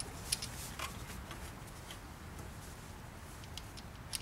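Faint rubbing and rustling of a cloth rag wiping up spilled oil in a generator's drip tray, with a few small clicks.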